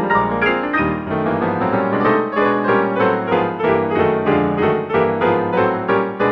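Background piano music: a quick, steady stream of notes.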